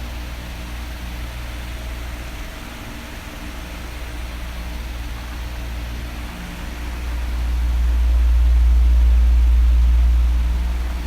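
Electric fan blowing: a steady whooshing noise over a low hum, growing louder about seven seconds in and easing back near the end.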